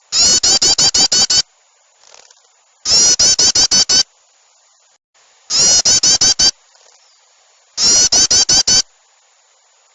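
Loud bird-lure recording of small songbirds chattering: four bursts of six or seven rapid, harsh call notes, each burst about a second long, repeating every two to three seconds.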